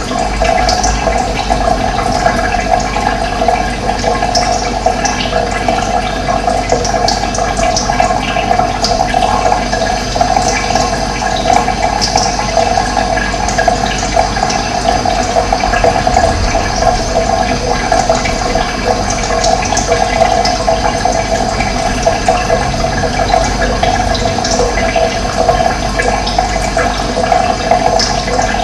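Steady rush of running water, with short, high bird chirps scattered through it.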